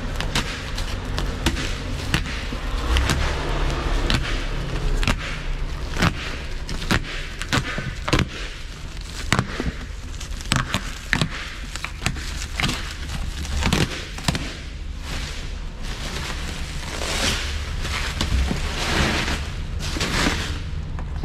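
Plastic stretch wrap on a pallet of boxes being cut with a box cutter and torn off by gloved hands: irregular crackling, rustling and sharp snaps of the film, with knocks from handling the cardboard cases. A steady low hum runs underneath.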